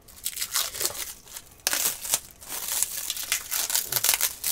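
Plastic wrapping crinkling and crackling as a bundle of threaded rods is handled and unwrapped, a rapid irregular crackle that gets louder about one and a half seconds in.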